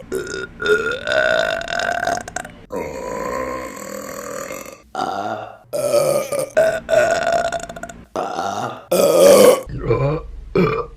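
Women burping, one long belch after another, about half a dozen drawn-out burps each held at a fairly steady pitch. A few shorter burps follow near the end.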